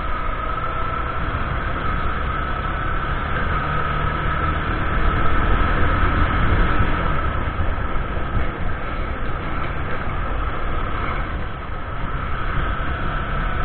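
Motorcycle engine running steadily while riding, with road and wind noise and a steady high whine over the low engine drone.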